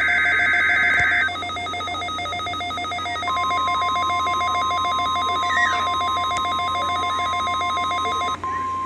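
NOAA Weather Radio test signal. A short burst of warbling digital data tones ends about a second in, and a fast, bell-like electronic trill runs beneath. About three seconds in, the steady single-pitch warning alarm tone comes on and holds, breaking briefly near the end.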